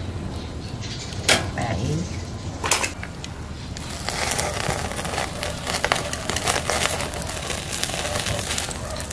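Scallion oil spooned onto abalone in their shells on a charcoal grill, sizzling and crackling from about four seconds in. Two sharp clicks of the spoon come before it.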